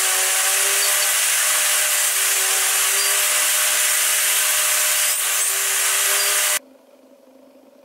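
Table saw running and cutting through a pine workpiece held upright in a tenoning jig, a steady loud whine with the motor's tone dipping slightly under load. It cuts off abruptly about six and a half seconds in, leaving only a faint hum.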